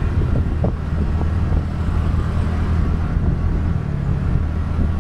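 TVS Ntorq 125 scooter engine running steadily while riding, a constant low hum under a haze of road noise.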